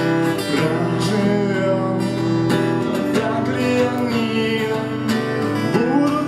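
Music: an acoustic guitar strumming steadily through an instrumental passage of a song, with sustained accompanying notes.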